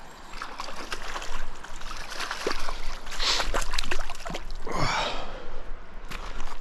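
Landing a small hooked fish on a lure: a run of sharp clicks and rustles with water splashing, and a breathy sigh that falls in pitch about five seconds in.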